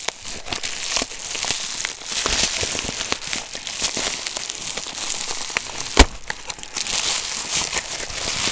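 Plastic packaging crinkling and rustling close to the microphone as it is handled and opened, with many small crackles and one sharp click about six seconds in.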